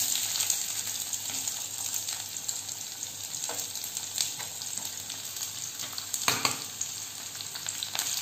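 Chopped onions sizzling in hot ghee in a kadhai as they are stirred, a steady hiss with a few sharp knocks and scrapes of the spatula against the pan.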